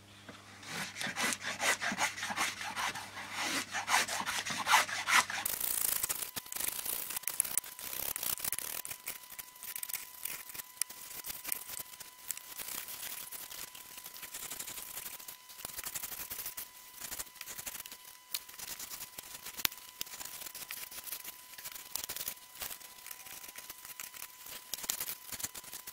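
Small balsa plane shaving a balsa wingtip block in repeated rasping strokes, wood scraping against the blade.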